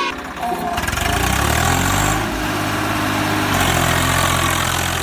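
A vehicle engine running, revving up a little over a second in, holding, then easing back down about two seconds later.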